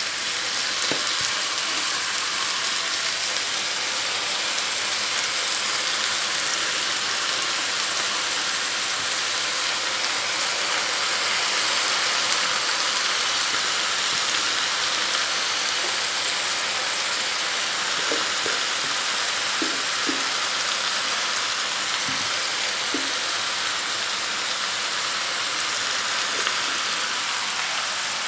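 Freshly washed, wet spinach sizzling steadily in hot oil and frying onions in a pan, with a few faint ticks in the second half.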